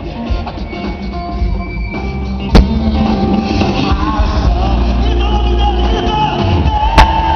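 Live gospel rock band playing, with drums, heavy bass and electric guitar, and a male singer's voice carrying over it; the music grows louder about two and a half seconds in. Two sharp clicks stand out above the music, about four seconds apart.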